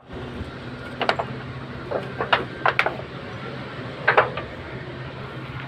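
A few short metallic clinks and knocks as a piston and engine-block parts are handled during a diesel engine rebuild. They come about a second in, a cluster between two and three seconds, and a double knock around four seconds, over a steady low hum.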